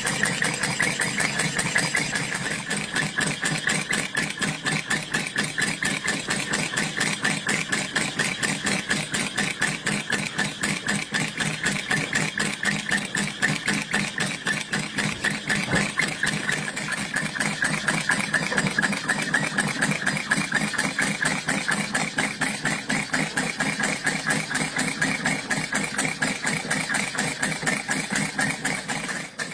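Glass model steam engine running at speed, its single cylinder and flywheel giving a rapid, even beat, several strokes a second.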